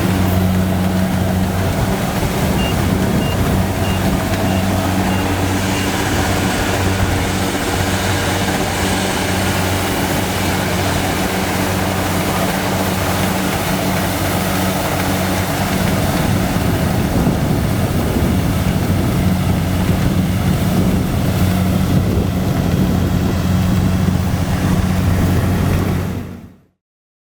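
Kubota DC70 combine harvester's diesel engine running steadily with a constant deep hum. It stops about 26 seconds in.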